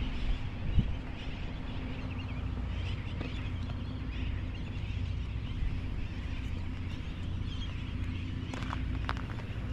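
A steady low motor hum, with faint bird calls over it and a few short clicks near the end.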